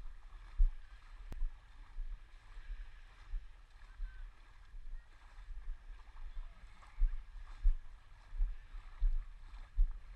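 Shallow sea water lapping and sloshing against a camera held at the surface, heard as irregular low thumps about once or twice a second over a faint wash, with one sharp click about a second in.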